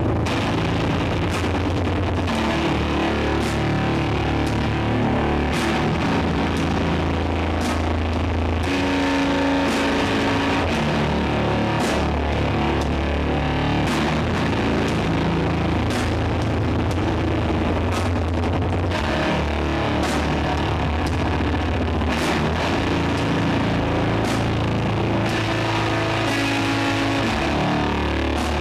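Doom metal band playing live: heavily distorted guitars and bass holding slow, low chords that change every couple of seconds, with slow, spaced drum and cymbal hits.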